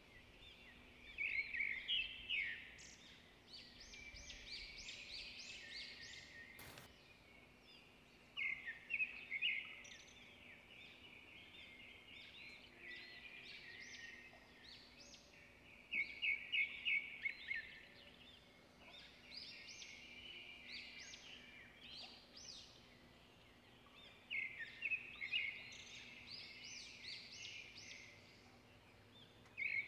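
Birds singing: phrases of quick, high chirping notes that come in bursts every few seconds, with a single sharp click about seven seconds in.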